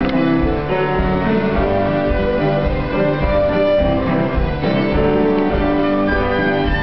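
Fiddle-led folk band playing a contradance tune, held bowed notes over a steady low beat.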